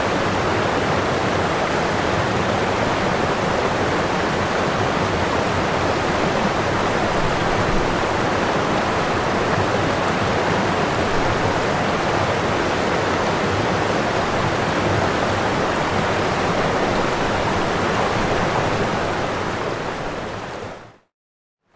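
Waterfall: the steady rushing roar of falling water. Near the end it fades out to a moment of silence, then starts to come back.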